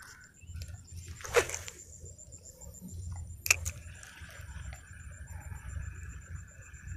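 A fishing rod cast out with a short swish of rod and line about a second in, then a sharp click a couple of seconds later. After that the fishing reel winds the lure back with a steady whir, over a low rumble.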